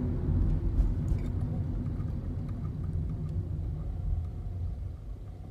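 Car interior driving noise: a steady low rumble of engine and road, heard inside the cabin, easing off toward the end.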